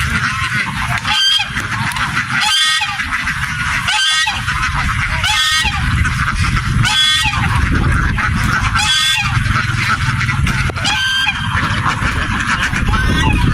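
A huge flock of domestic ducks calling together in a dense, continuous chatter, with louder single calls standing out about every second and a half over a steady low rumble.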